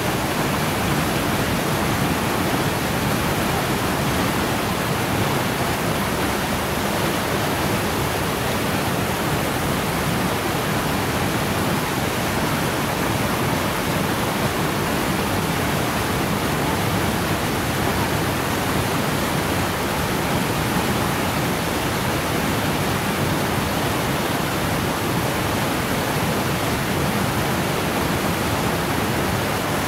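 Waterfall heard at close range, a steady, unbroken rush of water plunging onto rock and splashing into a shallow pool.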